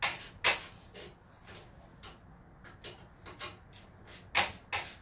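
Irregular sharp clicks and light metallic knocks of hand tools working on bolts under a riding mower, as its transaxle is being unbolted. The loudest come right at the start, about half a second in and about four and a half seconds in.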